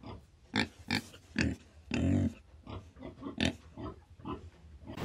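Collared peccaries grunting: about seven short, separate grunts and huffs, spaced irregularly.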